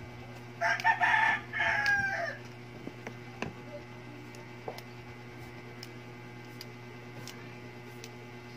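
A rooster crows once near the start, in two parts that end on a falling note. A few light clicks follow, over a steady low hum.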